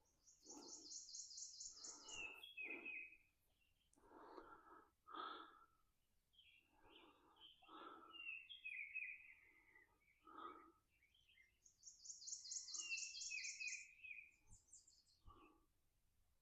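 Faint songbird singing twice, each phrase a high, fast, buzzy trill of about two seconds followed by lower slurred notes. Between phrases comes the angler's soft, heavy, congested breathing, laboured from a chest infection.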